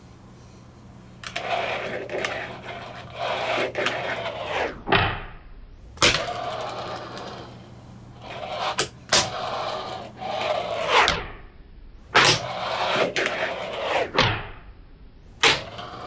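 Fingerboard wheels rolling over a desktop in runs of a few seconds, broken by repeated sharp clacks of the board popping and landing. Some rolls end in a falling whir.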